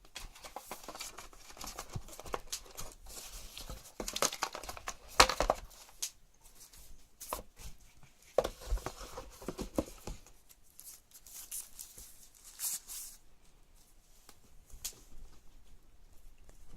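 Packaging being handled during an unboxing: irregular tearing, rustling and crinkling of wrapping, with scattered clicks and knocks, the sharpest about five seconds in.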